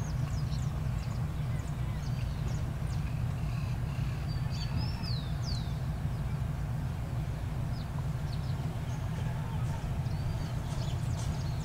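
Birds calling with many short whistles and chirps over a steady low rumble.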